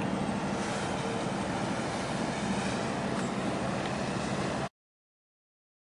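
Steady low drone of a marine engine with a constant low hum under a wide hiss of wind and water, cutting off suddenly about three-quarters of the way through to dead silence.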